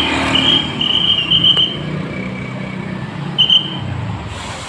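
A bus engine running, under a high, shrill whistle blown in a quick string of short blasts for the first couple of seconds and once more briefly about three and a half seconds in.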